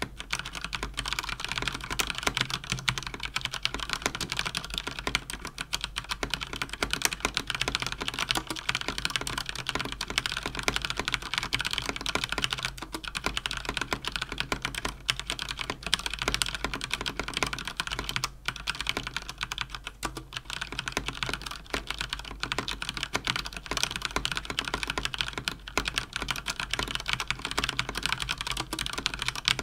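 Fast typing on a Cougar Attack X3 RGB mechanical keyboard with Cherry MX Speed linear switches: a dense, steady stream of key clacks with only brief pauses.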